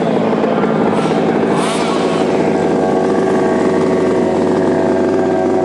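Petrol-engined radio-controlled model touring cars racing, their small two-stroke engines buzzing steadily together at high revs.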